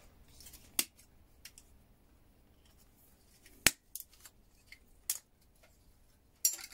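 Plastic being snipped and snapped off small relay switches: a handful of separate sharp clicks and snaps, the loudest nearly four seconds in, with a quick cluster right after it.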